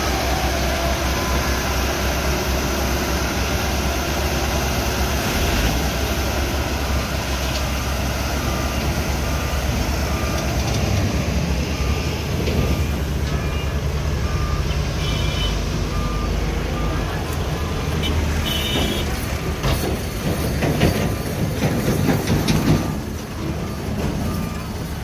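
Diesel engines of a Doosan 140W wheeled excavator and a Massey Ferguson 385 tractor running with a steady heavy drone. From about halfway a short warning beep repeats evenly, and the engine noise swells louder for a few seconds near the end.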